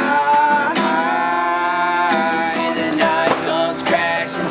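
A pop-rock song with strummed acoustic guitar and long held notes between the chorus's sung lines.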